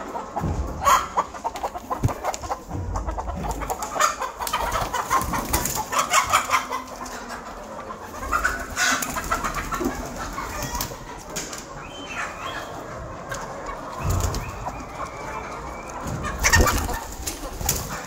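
A flock of Rhode Island Red and black hens clucking, with scattered short bursts of wing flapping and scuffling.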